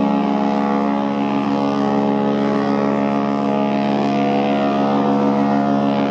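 Cunard liner's ship horn sounding one long, steady, deep blast.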